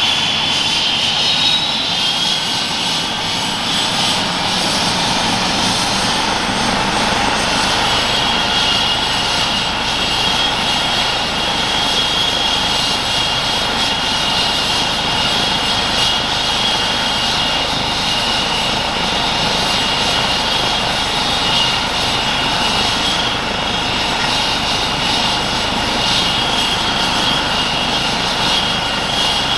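Airbus EC135 T2+ helicopter running on the ground with its main rotor turning: the steady high whine of its twin Turboméca Arrius 2B2 turboshaft engines over the rotor noise.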